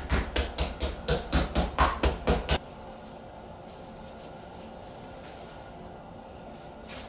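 Metal meat mallet pounding a young chicken through plastic wrap on a cutting board, flattening it for chicken tabaka: a quick run of blows, about five a second, that stops about two and a half seconds in.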